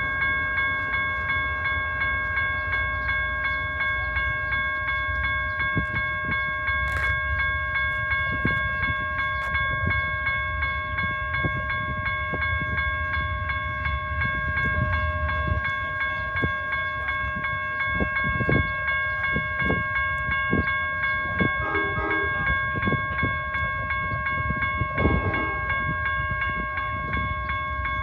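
Amtrak passenger train led by GE P42DC diesel locomotives pulling into a station, its engines rumbling low. A steady high-pitched tone holds at one pitch throughout, over a few short chimes or blips about two-thirds of the way through.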